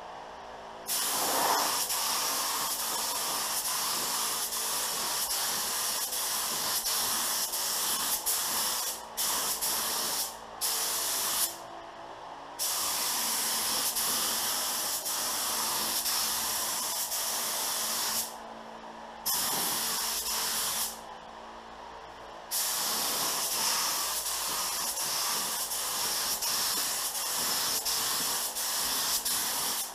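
Pro-Tek 4000 HVLP spray gun hissing as it sprays clear coat at about 28 PSI, in long passes with several short breaks where the trigger is let off. The hiss starts about a second in.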